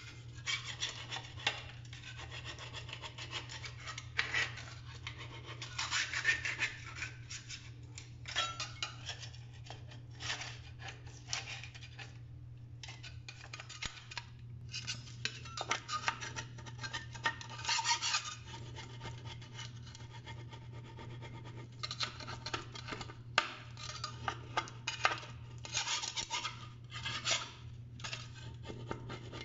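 Old silicone sealant being scraped and rubbed off the joint between a marble shower wall and the floor: irregular scratchy strokes, with a steady low hum underneath.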